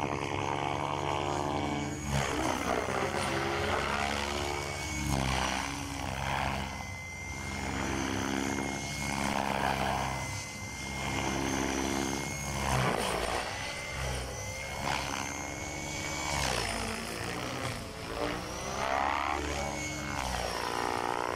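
Align T-Rex 600 electric RC helicopter flying aerobatics: a steady high whine over the pulsing sound of the main rotor, rising and falling in pitch again and again as the helicopter flips, rolls and swoops past.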